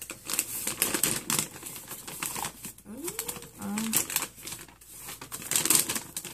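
Brown paper bag being unfolded and pulled open by hand: irregular crinkling and crackling of stiff paper.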